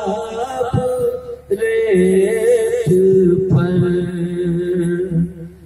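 A man's voice chanting a naat, an Urdu devotional poem, in long, held melodic lines. The line breaks off briefly about a second and a half in, then continues.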